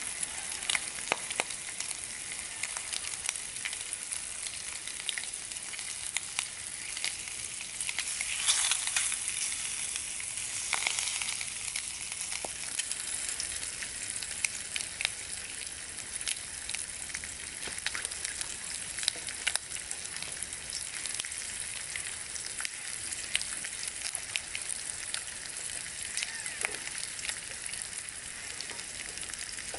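Bacon sizzling in a frying pan on a small camp stove: a steady hiss dotted with little crackles and pops, swelling louder for a few seconds about nine seconds in.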